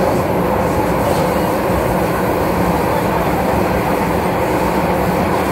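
MTR M-train electric multiple unit running along the line, heard from on board: a steady, loud noise of wheels on rail and running gear.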